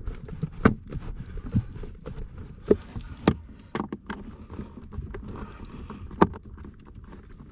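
Irregular clicks and knocks of hand tools and plastic and metal parts being handled while a car's AC blower motor is fitted under the dashboard, with a few sharper knocks standing out.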